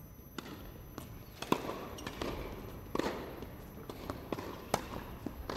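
Tennis rally on an indoor court: sharp racket-on-ball hits roughly every one and a half seconds, the loudest about one and a half seconds in, with softer ball bounces and players' footsteps between them. Each hit echoes around the large arena.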